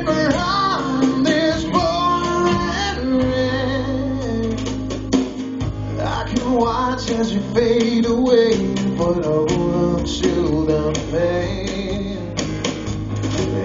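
Live acoustic rock song: two acoustic guitars strummed and picked over an electric bass guitar, with a man singing.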